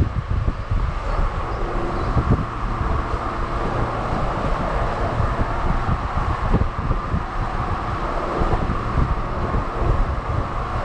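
Wind buffeting the microphone of a camera held out the side window of a moving Jeep Rubicon, in gusty low rumbles over the steady noise of the driving vehicle.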